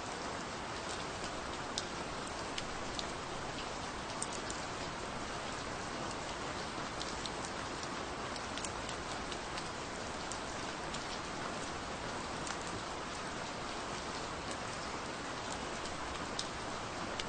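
Steady gentle rain falling, an even hiss with scattered sharp drop ticks.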